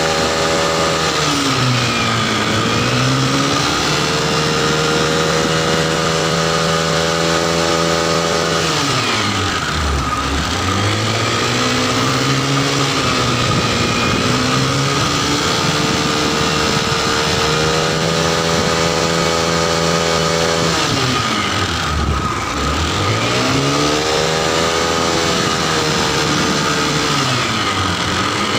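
Honda Activa scooter engine driving a homemade boat, running steadily at speed. Three times the revs drop and climb back up: about two seconds in, around ten seconds in, and around twenty-two seconds in. A steady high whine runs alongside.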